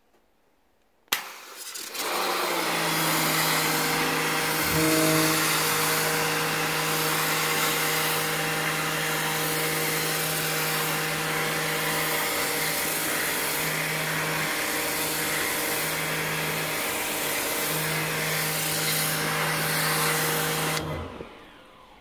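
High-pressure washer running, its pump humming steadily as the lance sprays a jet of water onto the aluminium fins of an air conditioner's evaporator coil. It starts about two seconds in, just after a click, and stops shortly before the end.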